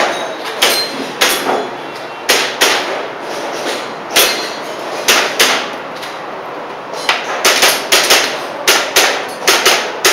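Airsoft pistol firing a long string of sharp shots, a few per second at first, then coming faster and closer together over the last three seconds.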